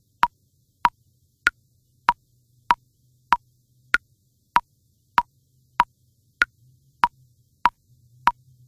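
Metronome clicking steadily at about 100 beats a minute, with a higher-pitched click on every fourth beat, counting in a four-beat bar.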